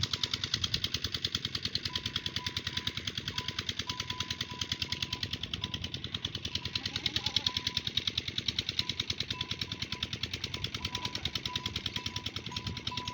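An engine running steadily with rapid, even thumps.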